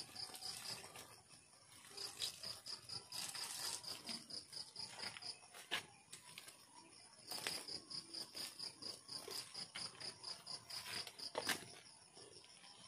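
Cricket chirping in a high, even pulse of about four chirps a second, in two long runs, with a few faint clicks.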